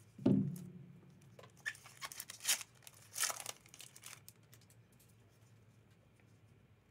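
Foil trading-card booster pack wrapper crinkling as it is cut open with scissors and the cards are slid out: several short crinkles in the first four seconds, the loudest just after the start, then only faint handling.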